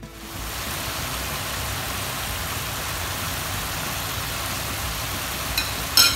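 Steady rushing kitchen noise by the stove, with two short clinks near the end, the second louder.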